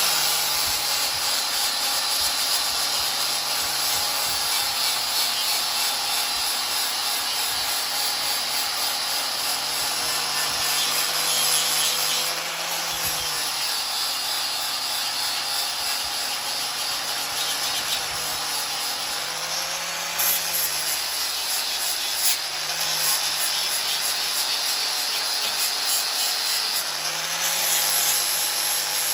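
Electric grinding tool abrading a steel spanner to remove its stamped size marking: a steady harsh hiss over a motor hum whose pitch rises briefly four times as the pressure eases.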